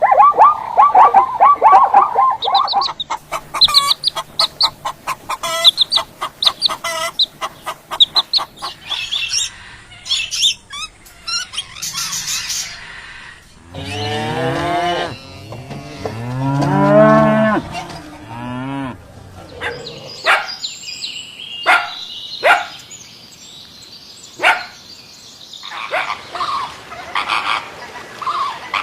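A run of different animal calls: quick repeated high-pitched calls in the first part, then a cow mooing, a long low call about halfway through, followed by short sharp high chirps.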